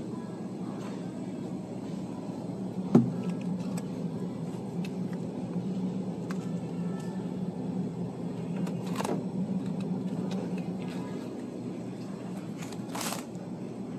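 Steady low hum of supermarket background noise by the chest freezers. A single sharp knock comes about three seconds in, and a couple of brief rustles and clicks come from plastic-wrapped sausage packs being handled.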